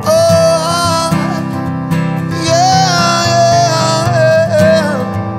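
Background music: strummed acoustic guitar with a melody line over it.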